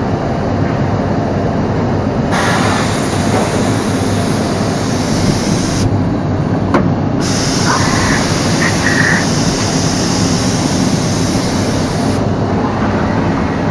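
Biesse Rover A CNC machining centre running with a loud, steady machine noise while its spindle head changes from a small saw blade to a large one. A hissing rush comes in about two seconds in, breaks off for about a second with a sharp click around six to seven seconds, then returns and stops about twelve seconds in.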